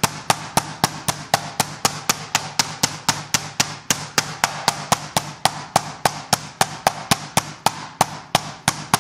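Meat mallet pounding a chicken breast under plastic wrap on a cutting board: a steady run of sharp blows, about four a second. The cutlet is being flattened to an even thickness.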